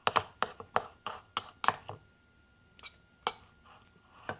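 Knife chopping cooked kabocha squash in a wooden bowl: a quick run of sharp chops on the wood for about two seconds, then a pause and a few single chops.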